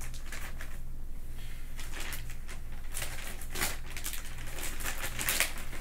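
Clear plastic mattress wrap crinkling and crackling as it is cut with scissors and pulled back, in a run of short rustles and snips, loudest about three seconds in and again near the end.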